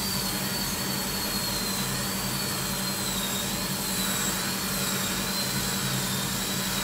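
High-speed dental drill running continuously with a high-pitched whine that wavers slightly in pitch, over a steady low hum and hiss.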